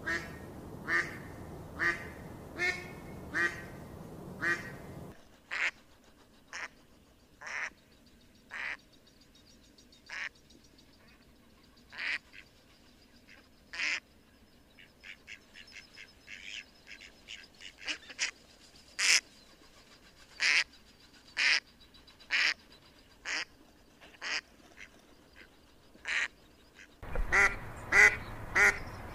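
Ducks quacking in a long string of short separate calls, coming faster around the middle. A steady background noise lies under the calls for the first few seconds and returns near the end.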